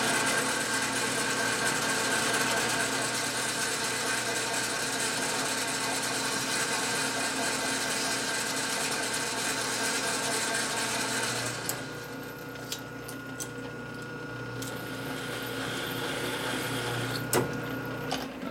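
Metal lathe running with a steady gear whine while the tool cuts and deburrs steel bar stock. About two-thirds of the way through the cutting hiss stops and the lathe keeps turning more quietly, with sharp clicks near the end.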